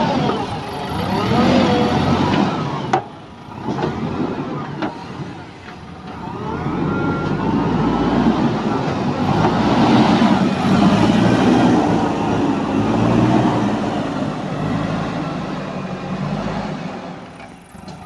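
JCB 3DX backhoe loader's diesel engine running under load as the front bucket digs and pushes through soil, its pitch rising and falling as the operator works the machine. It drops quieter for a few seconds early on, then builds up loud again.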